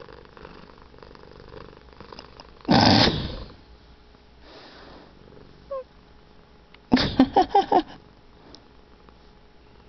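Sounds from a long-haired Persian–Maine Coon cat: one loud sharp burst about three seconds in, then a quick run of five short bursts near the end.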